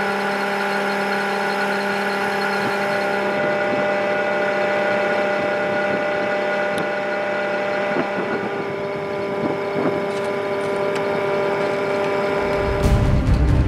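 A vehicle engine idling: a steady hum that holds one even pitch. Music with a heavy low beat comes in near the end.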